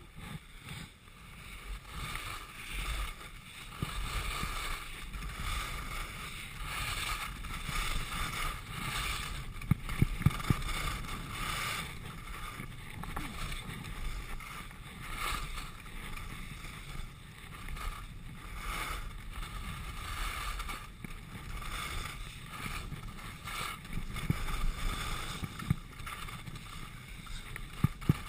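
Skis sliding and scraping over packed snow during a downhill run, with wind rushing over the camera's microphone; a few sharp knocks come about ten seconds in and again near the end.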